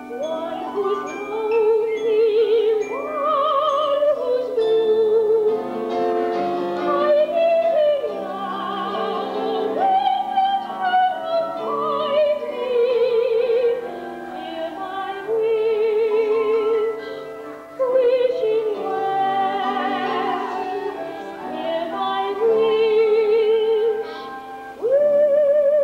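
A female soprano sings in operatic style over instrumental accompaniment. She holds long notes with a wide vibrato, in phrases broken by short breaths.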